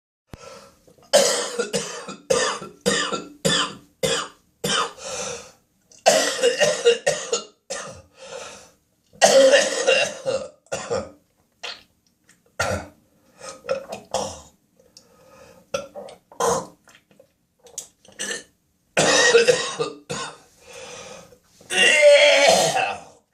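A person in a violent coughing spasm: fits of harsh, rapid coughs with throat clearing and gagging, coming in bursts a few seconds apart. The longest and loudest, a drawn-out retching gag, comes near the end.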